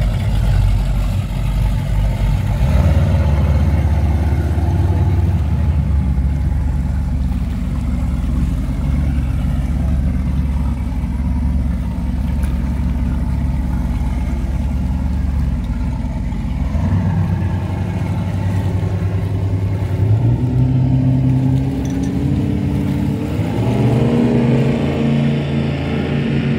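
Speedboat engine running at low speed with a deep, steady note as the boat pulls away, then rising in pitch twice in the last few seconds as it speeds up.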